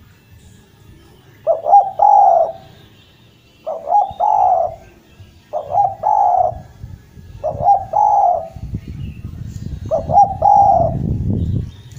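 Spotted dove (derkuku) cooing: five phrases about two seconds apart, each a couple of quick notes running into a longer coo. A low rumble comes in under the calls during the second half.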